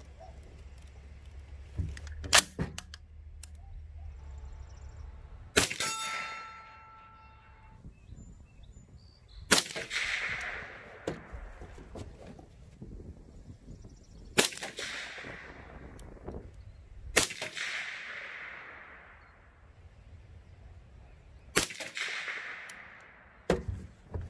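Four suppressed shots from a 300 Blackout rifle firing steel-cased rounds through a 30-cal suppressor, about three to five seconds apart, each followed by a long fading echo. Earlier there are two sharp metallic clacks, the second ringing briefly.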